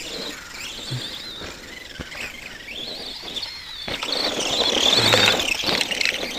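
Arrma Granite 2WD RC monster truck running, its electric motor and gears whining up and down in pitch with the throttle, louder from about four seconds in.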